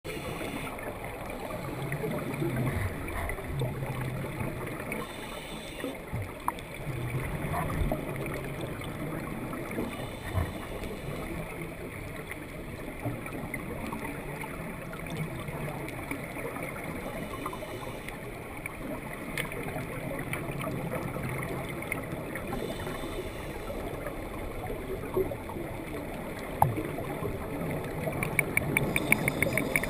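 Scuba regulator breathing and exhaled bubbles heard underwater, swelling and easing in cycles of about six seconds. A quick run of ticks comes near the end.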